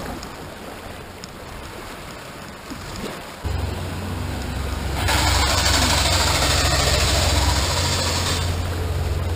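Fast creek water rushing around a kayak running a riffle, with a low rumble that sets in about three and a half seconds in. The rushing grows to a loud white-water hiss from about five seconds in until shortly before the end.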